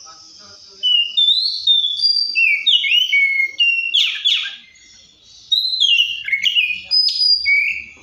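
Oriental magpie-robin singing: loud, varied whistled phrases of sliding and quickly falling notes, in two bursts with a short pause about halfway.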